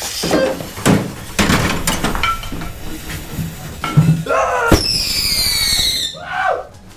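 Fireworks going off inside a microwave oven: a string of sharp bangs and crackles, then a loud bang and a whistling firework shrieking with a falling pitch for about a second near the end.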